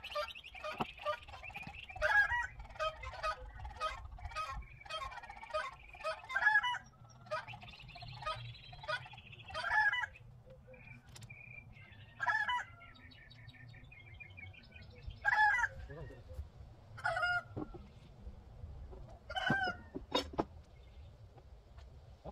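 Chickens calling: a long series of short pitched calls, close together in the first half, then more spaced out.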